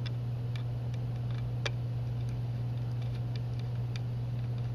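A steady low hum with a few faint, sharp clicks, the clearest about two seconds in, as a wire is moved between screw terminals on a damper zone control board.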